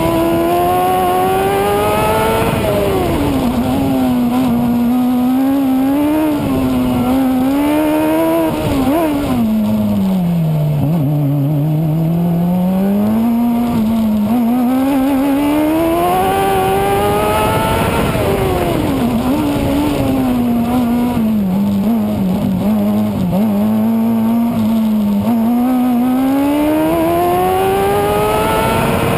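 Formula SAE race car's engine, close to the onboard camera, running hard around a track with its revs rising and falling through corners and straights. The pitch dips lowest about a third of the way in and climbs steadily again near the end.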